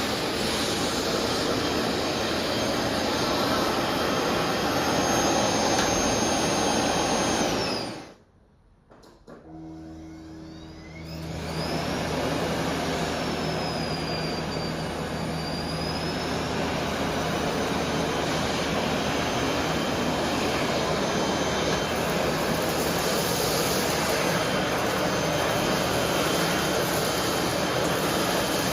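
Vacuum cleaner running with a steady rushing noise and a high motor whine. About eight seconds in it stops, and after a second or two it starts again and rises back to full speed.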